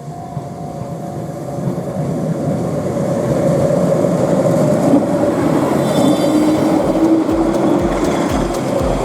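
A Keihan Ishiyama-Sakamoto Line train passing the level crossing, growing louder over the first few seconds, with a quick run of low wheel thumps near the end.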